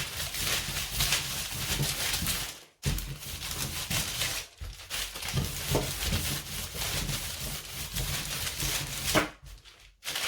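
Hands working biscuit dough on a board or tray: a run of quick scraping, rubbing and light knocking sounds.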